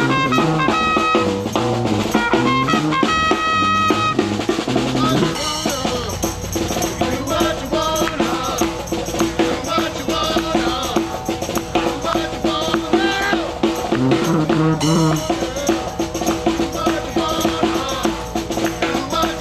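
New Orleans-style brass trio of snare drum, sousaphone and trumpet playing a groove. The trumpet drops out about five seconds in, leaving the snare drum and sousaphone bass line going.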